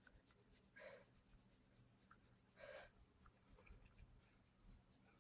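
Near silence: room tone, with two faint, short rustles about a second and two and a half seconds in.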